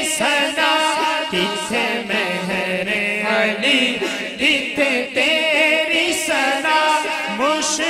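Male naat reciter singing into a microphone without instruments, in long, wavering, ornamented phrases.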